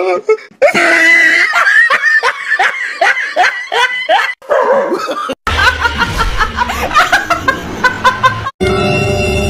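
A person laughing hard in a quick run of repeated ha-ha sounds, then music with a steady bass line from about halfway through.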